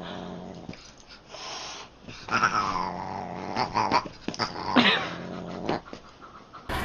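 A Siamese cat and a dog scuffling: low steady growling, two cat yowls that slide down in pitch (the second, just before five seconds in, the loudest), and quick knocks of paws and bodies in between.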